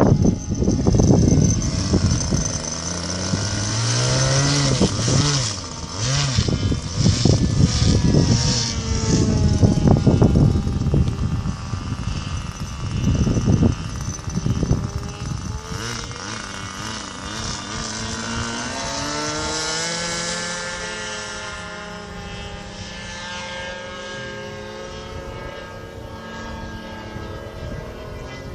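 Small glow-fuel engine of a radio-controlled model airplane buzzing in flight, its pitch rising and falling as the plane passes and turns. Wind gusts buffet the microphone through the first half, then the engine goes on steadier and fainter.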